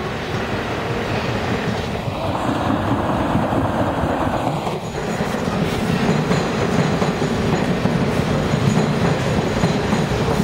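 New York City Subway train rolling along a station platform: a continuous rumble of wheels and running gear on the rails with some clickety-clack. About five seconds in the sound changes to a louder, closer train moving past.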